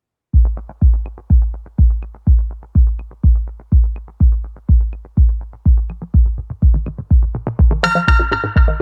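Electronic intro music: a heavy kick drum beats steadily about twice a second, and a synthesizer layer comes in near the end.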